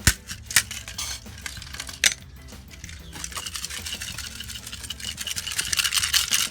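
Hammer blows on an alarm clock: three sharp strikes in the first two seconds, then a dense, rapid clatter that builds toward the end.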